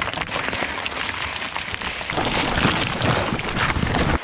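Mountain bike riding down a loose rocky trail: tyres crunching over stones and the bike rattling over the bumps, with wind rushing on the camera microphone. It gets louder and busier about halfway in.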